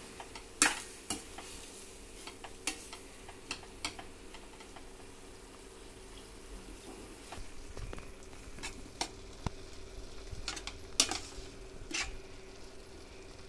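Metal spoon stirring grated beetroot and boiled milk in a stainless steel pan, with irregular sharp clicks and scrapes of the spoon against the pan. The pan sizzles faintly underneath as the milk heats in with the beetroot.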